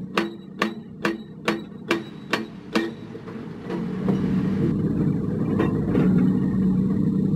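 About seven sharp knocks, evenly spaced at roughly two a second, over a low engine drone; they stop about three seconds in and the diesel engine of heavy construction machinery then runs louder and steadily.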